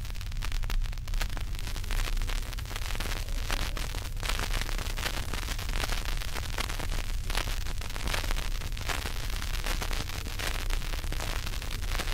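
Surface noise of a 1948 Presto 78 rpm acetate disc under the stylus, in a stretch of groove with no music: steady hiss packed with crackles and pops over a low hum.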